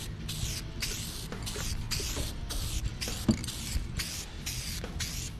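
Aerosol can of Shine Juice spraying onto car paint in short hissing bursts, about two a second.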